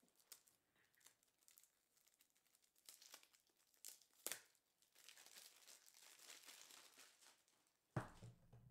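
Faint crinkling and tearing of wrapping being handled, with a sharper click about four seconds in and a low thump near the end.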